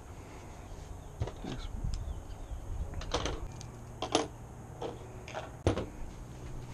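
Irregular clicks and light knocks, about seven of them, of hand tools being picked up and set down on a plastic table.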